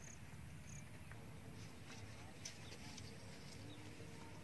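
Faint rural outdoor ambience: a steady low rumble with a short high-pitched insect chirp twice in the first second, faint bird calls, and a faint wavering animal call near the end.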